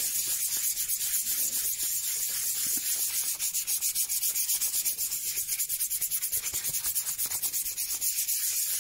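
Fine 400-grit sandpaper rubbed by hand in quick back-and-forth strokes over a round wooden clock weight, denibbing grain raised by wetting: an even, scratchy hiss of many strokes a second.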